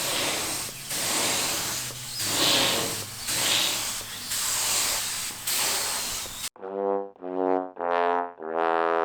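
Air-fed paint spray gun hissing as it sprays paint in repeated passes, with short breaks about once a second. About six and a half seconds in it cuts off abruptly and a brass-like jingle plays: three short notes, then one long held note.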